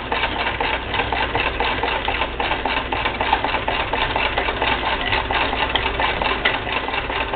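Singer Spartan hand-crank sewing machine stitching steadily, a rapid even clatter of needle strokes as the crank is turned.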